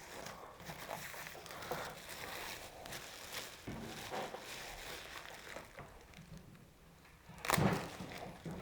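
Rustling and handling of a stretchy seat cover being pulled over a motorcycle seat, in short scattered bursts, with a louder rustle about seven and a half seconds in.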